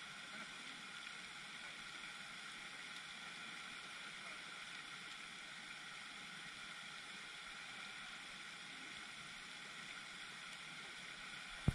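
Steady hiss of a pond fountain's spray falling onto the water. A single sharp click cuts in near the end.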